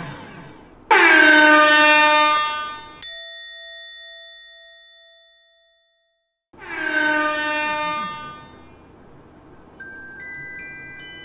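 Air-horn-style blast, one steady held note that cuts in suddenly and fades over about two seconds. A bright bell-like ding rings out after it, and after a brief dead silence a second horn blast sounds.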